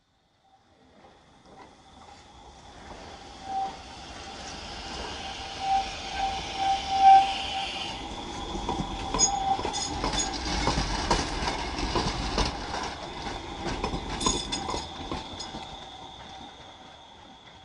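A tram passing close by: it rises out of near silence with a squealing wheel tone in the first half. Then its wheels clatter over the rail joints and crossings with a low rumble as it goes by, and the sound fades as it pulls away.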